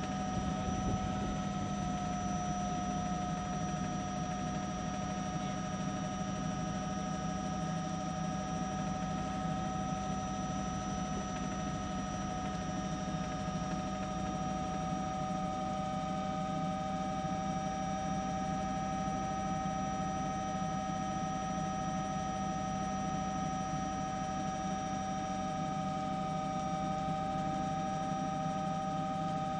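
Steady aircraft engine noise, as from the camera helicopter: a constant whine of several high tones over a low drone and hiss, with the main tone creeping slightly higher.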